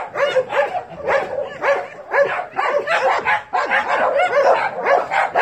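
Several dogs barking and yipping together, short overlapping barks coming several times a second without a break.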